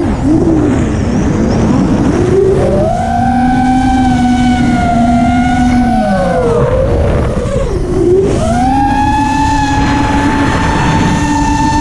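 Brushless motors and propellers of an FPV racing quadcopter, heard from the quad itself, whining with a pitch that follows the throttle. The pitch drops sharply at the start, wavers, then holds; it sags again past the middle and climbs back to a steady high whine near the end, over a constant rush of wind.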